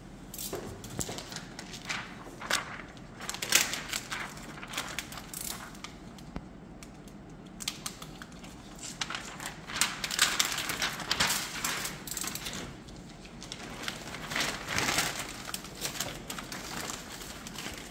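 Thin plastic window-tint film crinkling and rustling in irregular bursts as trimmed offcuts are handled and gathered into a plastic bag.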